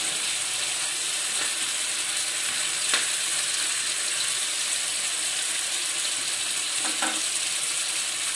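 Taro root cubes and spice masala sizzling steadily in oil in a kadhai, with a spatula stirring through them and one sharp click against the pan about three seconds in.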